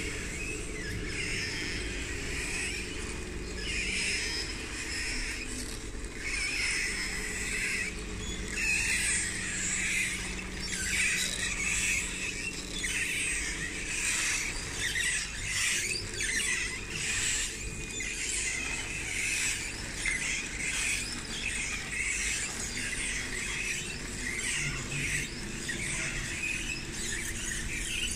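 Tracks of a radio-controlled Caterpillar D6T model bulldozer squealing in short, irregular bursts as it crawls and pushes sand, over a steady low hum from its drive.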